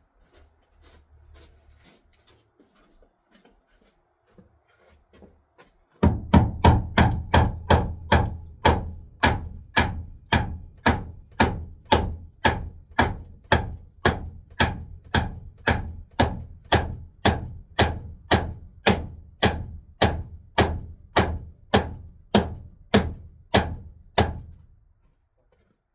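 Hammer blows striking wood in a steady rhythm, about two a second, starting about six seconds in and stopping near the end: a new wooden crossmember being knocked into place in an RV's front frame.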